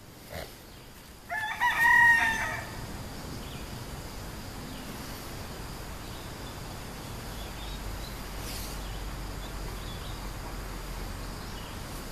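A rooster crowing once, about a second in, for about a second and a half, followed by steady faint outdoor background.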